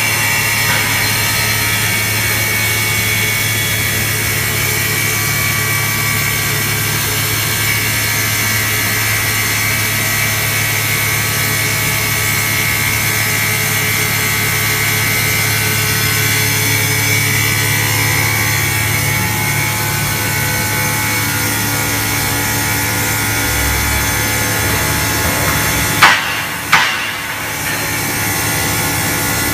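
Multi-blade stone mosaic cutting machine running steadily: a low motor hum under a high, even whine. Two sharp, loud knocks near the end.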